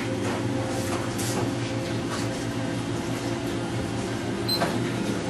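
Steady low mechanical hum of room equipment, with a few brief crinkles of a plastic bag as hands work inside it over a steel sink.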